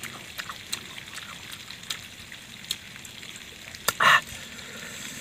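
Small wet chewing and lip-smacking clicks from a man eating spicy young kedondong fruit salad. About four seconds in there is one short, loud hiss of breath drawn in through the open mouth, a reaction to the chilli heat.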